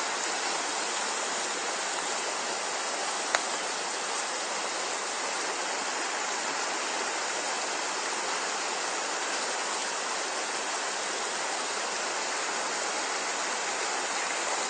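Shallow river running steadily over stones, an even rushing of water. A single short click about three seconds in.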